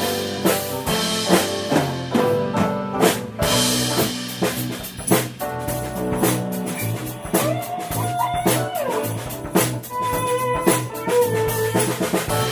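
Live jazz-rock improvisation by a quartet: drum kit with steady hits, electric bass, guitar and keyboard playing together. A held note bends up and down in pitch about two-thirds of the way through.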